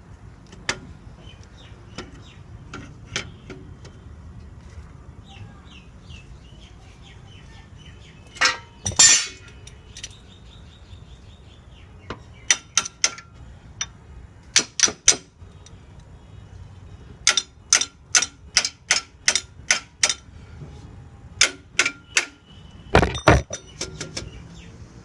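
Metal tools clinking and knocking on metal in a series of sharp strikes, bunched several to a second, with two louder ringing clangs, one about nine seconds in and one near the end.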